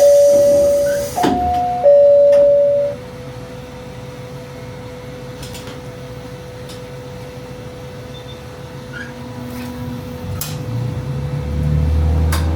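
A train horn sounding a two-note call twice, high then low, each note about a second long, with a burst of air hiss on the first note. Later the diesel railcar's engine rises as the train picks up power.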